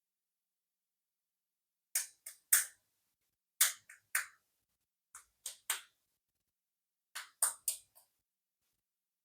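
Toy clicking: sharp, short clicks in quick groups of three or four, four groups in all, the first about two seconds in and the rest about a second and a half apart, with dead silence between.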